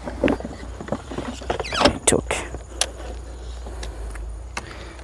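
Detachable battery pack being lowered into the battery compartment of a Revolt RV400 electric motorcycle: scattered knocks, clicks and scraping of the battery casing against the compartment, busiest about two seconds in.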